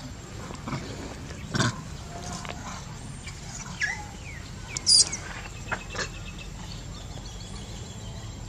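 Short high-pitched animal calls and falling chirps, scattered and brief, the loudest a sharp high call about five seconds in, over a steady low rumble.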